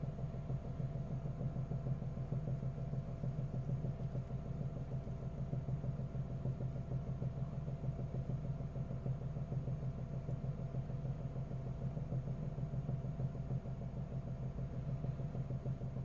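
Car engine idling with a fast, steady pulsing and a knock that shows up after a cold start and goes away once the engine warms up; the knock is heard only inside the cabin, not with the bonnet up.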